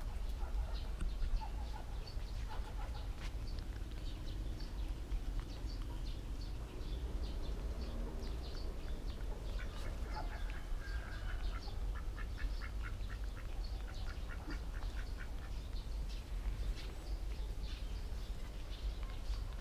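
Animal calls: scattered short, high-pitched chirps throughout, with a quick run of repeated calls around the middle, over a steady low rumble.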